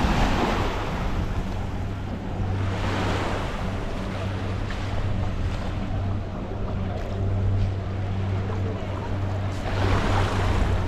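Boat engine running with a steady low hum as the hull moves through the sea, with rushes of splashing water, three times: at the start, about three seconds in, and near the end.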